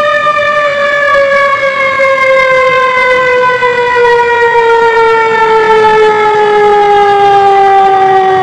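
Fire engine's siren winding down: one loud, unbroken tone slowly falling in pitch throughout.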